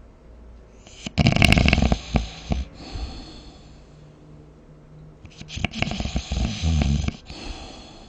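A sleeping person snoring twice, about four seconds apart, each snore a loud rattling breath lasting one to two seconds.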